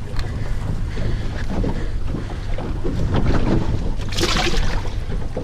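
Wind and water noise aboard a small open fishing boat, with a steady low rumble and scattered light knocks. A louder hissing rush comes about four seconds in.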